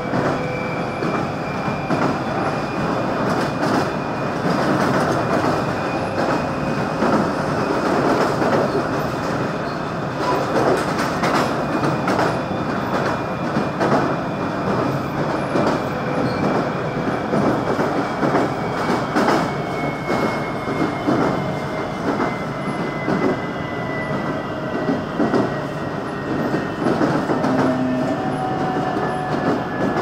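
Ride noise inside a moving commuter train: wheels running on the rails with irregular clicks from the track. A thin high whine runs through it and drops slowly in pitch over the last third.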